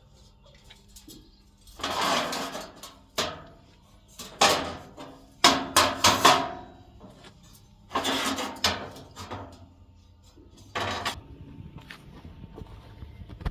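Metalworking noise on steel: about six separate short bursts of scraping and clanking, each lasting under a second, with brief quiet gaps between.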